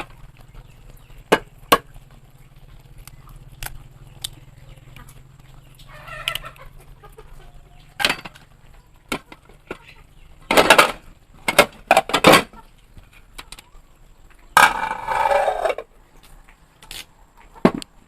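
Domestic chickens clucking, with a rooster crowing once, about a second and a half long, near the end, among scattered sharp knocks.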